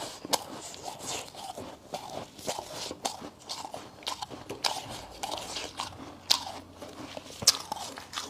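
Close-up crunching of refrozen freezer frost being bitten and chewed: a run of sharp, crisp crunches a few times a second, the loudest a little past six seconds in and again about seven and a half seconds in.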